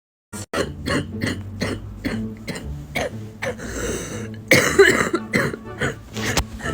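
A woman's coughing fit with bronchitis: a quick run of short, wet, congested coughs, about three a second, growing louder about four and a half seconds in.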